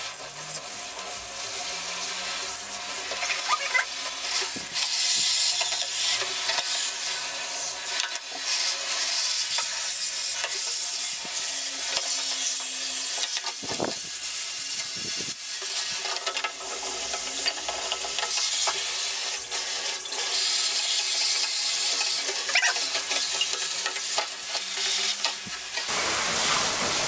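Hot water running from a tap into a sink, a steady hiss and patter over the soaked plastic casing of a cassette recorder. About halfway through there is a brief splash as a hand rubs the casing.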